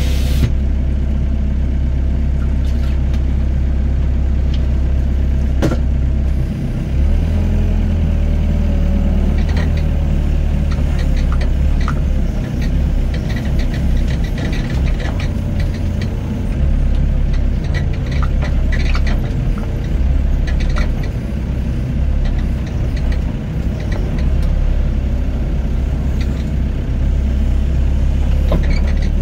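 Diesel engine of a Doosan excavator running loud and steady, its low hum shifting with load as it digs and loads sand, with scattered short knocks and clanks.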